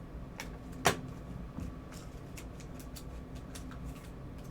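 Trading cards being handled and flipped during a pack rip: scattered light clicks with one sharper snap about a second in, over a faint steady hum.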